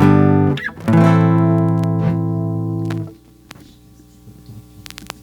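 Guitar strumming two chords, the second left ringing for about two seconds and then cut off sharply about three seconds in; after that only low room sound with a few faint clicks.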